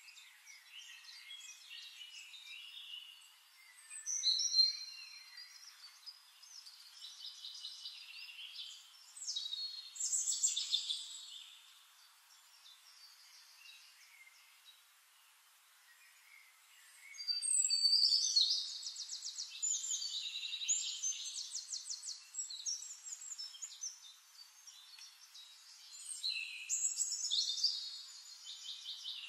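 Songbirds singing: overlapping chirped phrases and fast high trills, coming in louder bursts that come and go.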